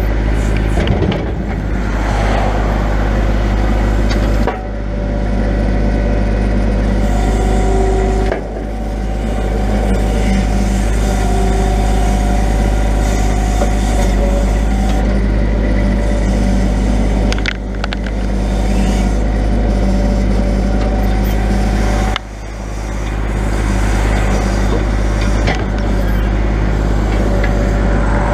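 Grapple truck's engine running with the knuckle-boom loader's hydraulics working, a low rumble under a hydraulic whine whose pitch shifts as the boom and grapple are moved. The level dips briefly four times, each time climbing back over about a second.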